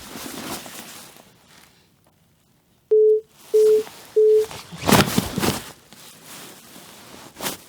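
Three short cue beeps on one pitch, then a Foley body fall performed by slapping heavy leather shoes down onto a piece of clothing: a quick cluster of heavy thuds about five seconds in and a single thud near the end.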